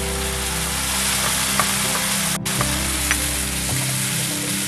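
Coriander, green chilli and tomato paste sizzling as it goes into hot mustard oil and onions in a frying pan, stirred in with a wooden spatula. The sizzle is a steady hiss.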